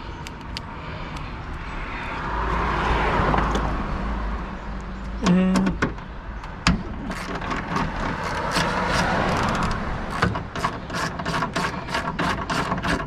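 Hands and tools working on the trunk latch and trim inside a car's trunk: rustling and scraping, a brief pitched squeak about five seconds in, then a run of quick clicks, roughly four a second, near the end.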